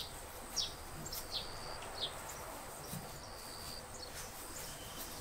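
Small birds chirping in the background: short, high chirps and brief held whistled notes about once a second, over a low, steady hiss.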